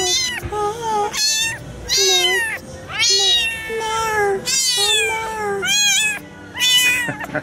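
Young kitten meowing over and over, about seven high-pitched cries roughly one a second, each rising and then falling in pitch.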